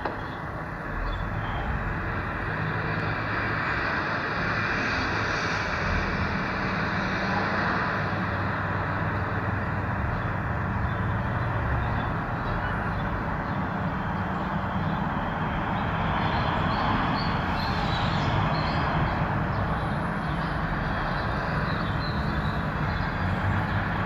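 Road traffic going by: a continuous wash of tyre and engine noise that swells as vehicles pass, about five seconds in and again past the middle.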